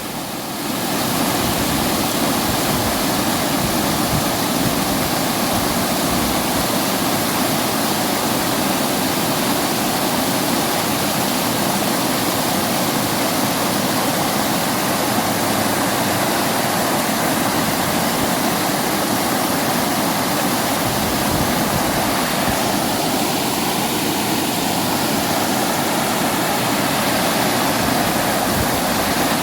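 Fast-flowing mountain river rushing steadily over its rocky bed.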